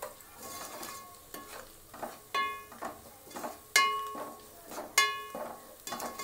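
A metal ladle stirring and scraping a thick frying masala around a metal pot. Three times, about a second apart, the ladle strikes the pot with a bright ringing clink, over faint sizzling of oil.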